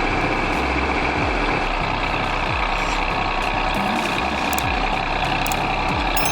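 Heavy machine's diesel engine running steadily, with a constant high whine over the engine noise.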